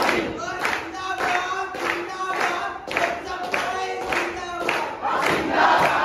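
A group of people chanting slogans together, led by one man shouting the call, with steady rhythmic hand claps. The crowd's voices swell louder about five seconds in.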